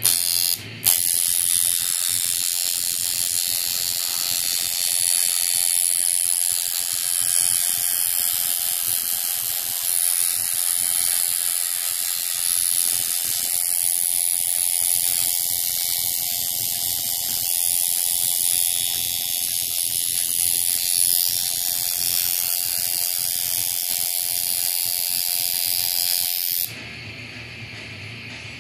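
Coil tattoo machine buzzing steadily as it drives the needles into skin. It cuts out briefly under a second in, then runs on and switches off about 27 seconds in.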